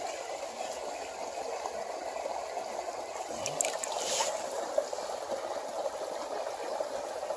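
Creek water running steadily, with a few brief sharp sounds about three and a half to four seconds in.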